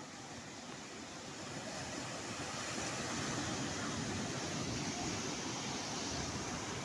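Surf breaking on a sandy beach: a steady wash of waves that swells louder about two seconds in.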